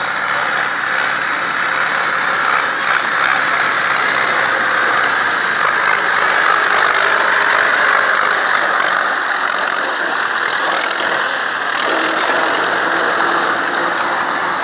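Ursus C-360 farm tractor's four-cylinder diesel engine running steadily as the tractor drives close by.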